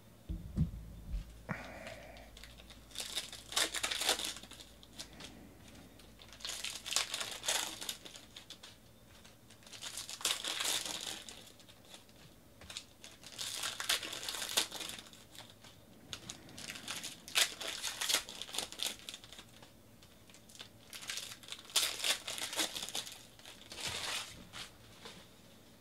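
Foil wrappers of baseball card packs being torn open and crinkled, one pack after another. There is a burst of crinkling about seven times, roughly every three and a half seconds, with quiet card handling in between.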